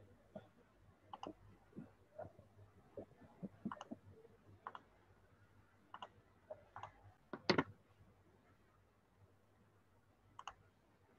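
Faint, irregular clicks and taps of a computer mouse and keyboard, with one louder click about seven and a half seconds in.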